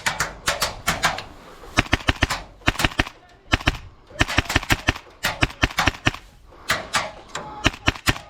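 Tokyo Marui MP7 gas-blowback airsoft rifle, run off an HPA air line, firing short rapid bursts of sharp cracks, several shots a second, with brief pauses between bursts.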